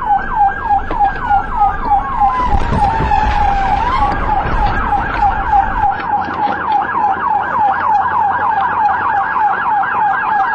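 Police car siren on fast yelp, sweeping up and down about five times a second. A second siren's slower wail falls and then rises under it in the first few seconds, over a low engine and road rumble that drops away about six seconds in.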